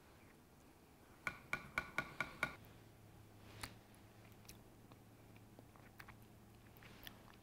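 A spoon clinking against a small stainless steel saucepan: about five quick ringing knocks in a little over a second, followed by a faint low hum.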